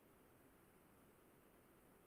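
Near silence: faint steady recording hiss.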